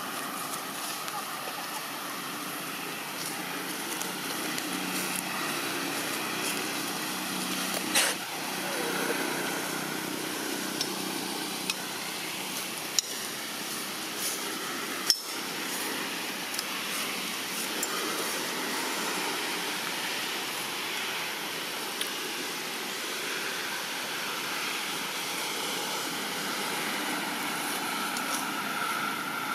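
Steady outdoor background noise, an even hiss with a faint high hum, broken by a few short sharp clicks, the loudest about halfway through.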